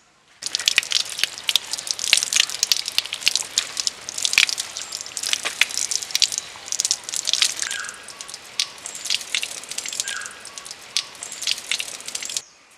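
Water from an outdoor tap running and splashing over a large fish as it is rinsed by hand, with irregular spattering and dripping. It starts suddenly and cuts off suddenly near the end.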